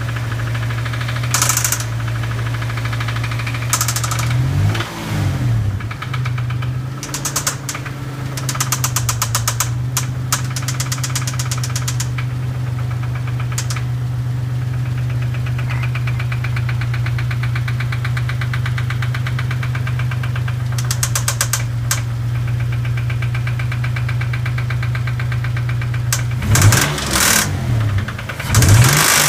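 Dodge Stealth 3.0-litre V6 running at a steady idle with a knock and a ticking, which the owner puts down to engine knock and a bent valve. The pitch briefly rises and falls twice, about five seconds in and again near the end.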